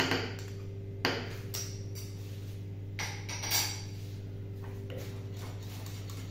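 A metal spoon knocking and scraping against a small plate and the rim of a saucepan a few times as soft cheese is scraped off into béchamel sauce, with a steady low hum underneath.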